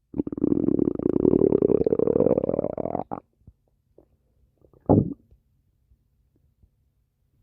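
Human stomach growling: one long rumble of about three seconds that rises in pitch, then a short gurgle about five seconds in.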